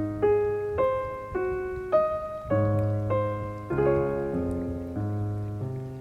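Soft piano music: a slow melody of single notes, one about every half second, over held bass notes, fading gradually.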